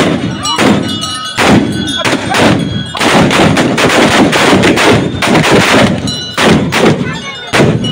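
A ragged volley of black-powder long guns fired by a group of men, many shots cracking out one after another. The shots come a few at a time at first, then overlap thickly from about three seconds in.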